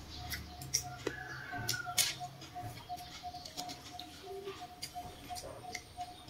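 Close-up eating of watermelon: wet chewing and smacking with sharp clicks, and a fork picking a piece from a stainless steel tray. A faint tone pulses about three times a second in the background.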